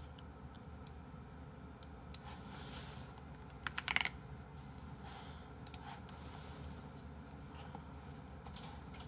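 Faint computer keyboard typing: scattered single keystrokes, with a quick run of several keys just before four seconds in and a couple more near six seconds, over a low steady room hum.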